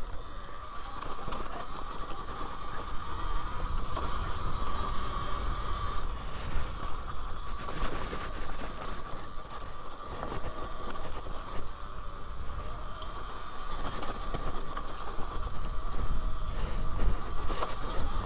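Electric dirt bike (Talaria Sting R MX4) ridden over a rough dirt track: a steady high motor whine over low wind and tyre rumble, with scattered knocks and rattles from the bumps.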